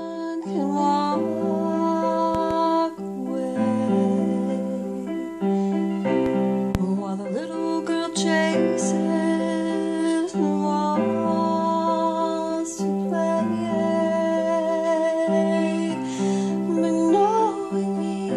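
Keyboard playing slow, sustained piano chords, the low note changing every second or two, with a woman's voice singing over it in places.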